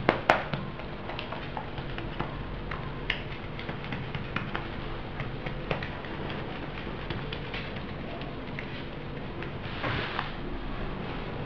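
Fingers patting and pressing buttered dough flat against a granite countertop: soft scattered taps and a sharp click about a third of a second in, over a steady faint room hiss, with a brief swish near the end.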